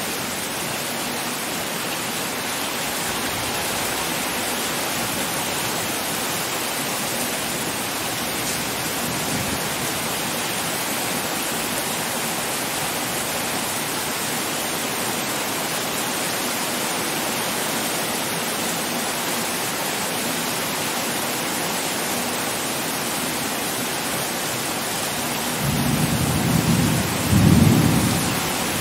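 Heavy rain falling in a steady hiss. Near the end a low rumble of thunder swells twice, the second swell louder.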